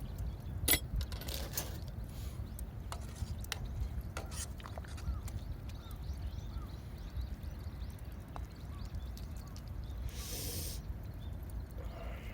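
Wood campfire crackling, with irregular sharp pops over a steady low rumble, and two brief hissing rustles.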